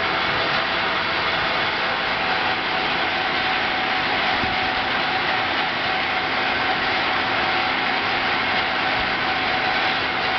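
Steady drone of casting-shop machinery, the fume-extraction blowers and vacuum-casting pump, running evenly with a faint steady hum underneath while molten metal is poured into a flask.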